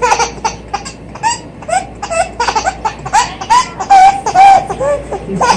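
A young child laughing hard in a long string of short, high-pitched bursts.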